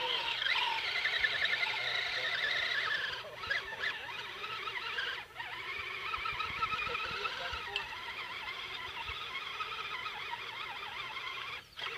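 Electric motor and drivetrain of a radio-controlled crawler truck whining as it drives through mud. The pitch wavers up and down with throttle and load, and it cuts out briefly about three and five seconds in and again near the end.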